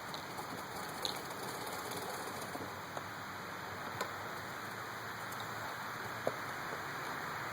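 1936 Singer 15-88 treadle sewing machine running steadily as it stitches through a leather belt: an even mechanical rattle with a few sharp clicks.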